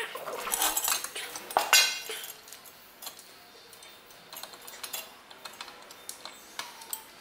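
Small metal clinks and rattles of a bolt and lock washer being handled and fitted by hand into a motorcycle crash-guard mount. The clinking is busiest in the first two seconds, then thins to scattered light ticks.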